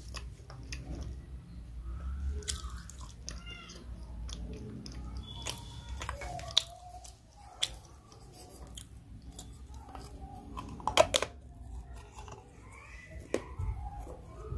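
Close-up mouth sounds of chewing crunchy food: wet chewing with crisp crunches and a few sharp clicks, the loudest about eleven seconds in.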